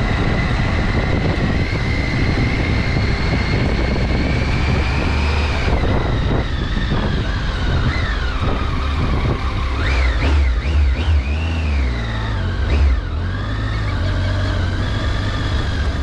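Triumph motorcycle engine running under way, the revs climbing steadily for about five seconds, then dropping off. Around ten to twelve seconds in, the revs rise and fall several times in quick succession.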